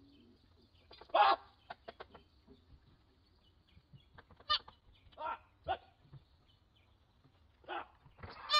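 Fawn bleating in distress: about six short, nasal cries at irregular intervals, heard through a doorbell camera's small microphone.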